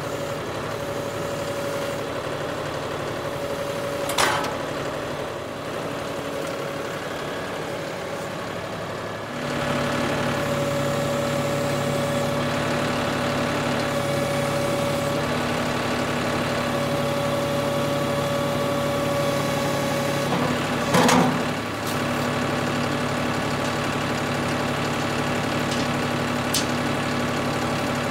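John Deere 5045E tractor's diesel engine running steadily at idle, a little louder from about a third of the way in. A sharp metallic knock comes about four seconds in and a few knocks come about three-quarters through.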